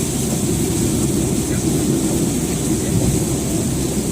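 Steady rumble of a car driving in heavy rain, heard from inside the cabin: road and engine noise mixed with rain on the body.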